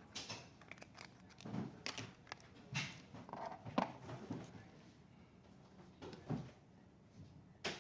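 Irregular light clicks, taps and short scrapes of laptop parts being handled during a RAM upgrade, with one sharper click near the end.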